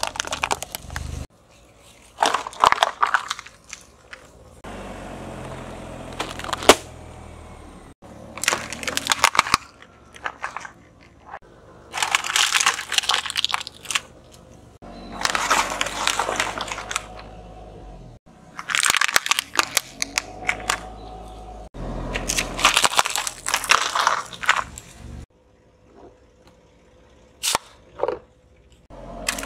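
A car tyre crushing a run of small objects one after another: plastic bottles crackling and snapping flat, hard lollipops cracking and crunching on a foil tray. About eight separate bouts of crunching and cracking, each a second or two long, some over a low steady rumble.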